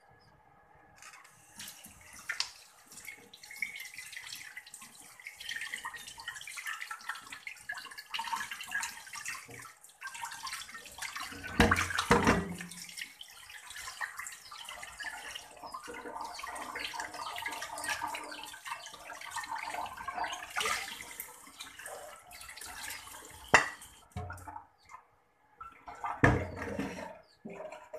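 Tap water running and splashing into a stainless steel sink as raw chicken breast is rinsed by hand on a plate. The water starts about a second in, and a few louder knocks stand out along the way.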